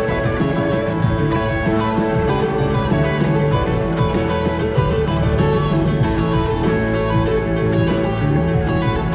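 Live rock band playing continuously, with guitar out front over a full band mix.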